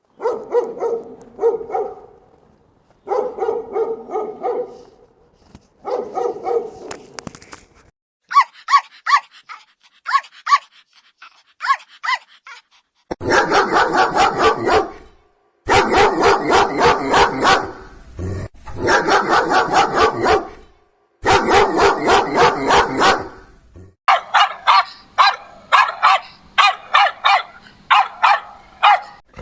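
Several different dogs barking, one recording after another: deeper barks first, then higher, sharper barks, then stretches of rapid, nonstop barking.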